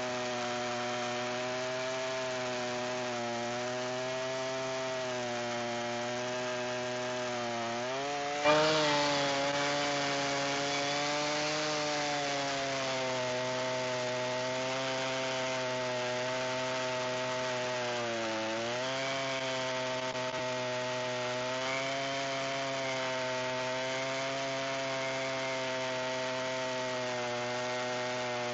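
Chainsaw mill running under load, ripping the first slab cut along a sweet gum log. The engine note sags and recovers a couple of times, and there is a sudden loud knock about eight seconds in.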